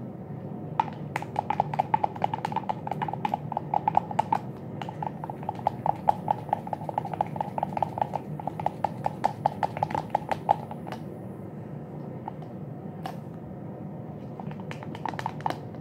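A toothbrush handle stirring slime mix of glue and Tide detergent in a plastic cup, clacking rapidly against the cup for about ten seconds, then a few more taps near the end.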